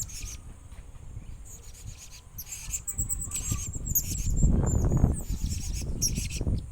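Young blue-crowned hanging parrot (serindit) making many short, thin, high-pitched chirps, with a louder low rustling noise in the second half.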